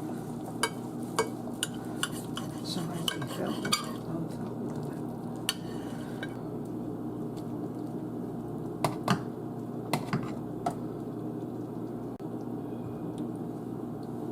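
Knife and fork clicking against a plate while the pot roast is carved and slices are lifted off. There is a quick run of sharp clicks in the first few seconds, then a few scattered ones, over a steady background hum.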